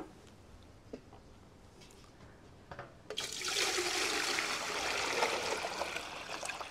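Water poured from a galvanized metal bucket into a large aluminium stockpot: a steady splashing stream that starts about three seconds in, after a couple of light knocks, and tails off near the end.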